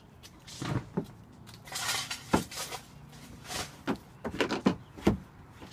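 Hollow plastic knocks and clatter from a children's playhouse door and frame being pushed and banged, a string of separate sharp knocks mixed with short scraping noises.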